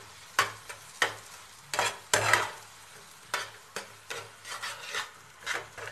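A spatula scraping and stirring thick semolina halwa in a metal kadai, in about ten quick, uneven strokes, as ground almonds and fennel seeds are mixed in near the end of cooking.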